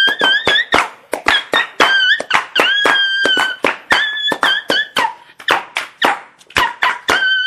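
A little dog's sound: a rapid string of high squeaks among sharp clicks and taps, several a second, with short pauses between runs.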